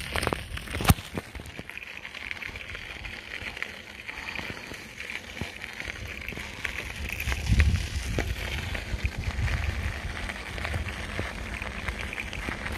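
Bicycle rolling along a park path: tyres crackling over grit with scattered small clicks, and wind rumbling on the microphone, heavier from about halfway through.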